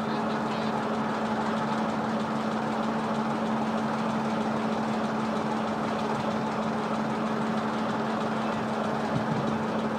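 A locomotive standing under power, giving a steady low hum over a constant hiss, with no wheels rolling.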